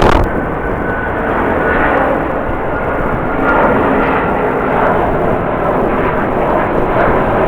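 Jet airliner engines running: a steady rumble with a faint high whine.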